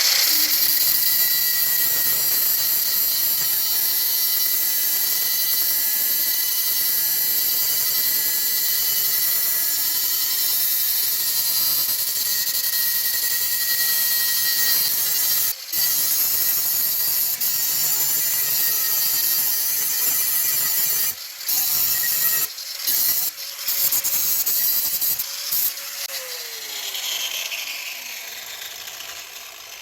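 Electric grinder sharpening the cutting edge of a steel lawnmower blade: a steady grind with a thin whine, broken off briefly a few times past the middle. Near the end the grinder is switched off and its motor spins down, falling in pitch.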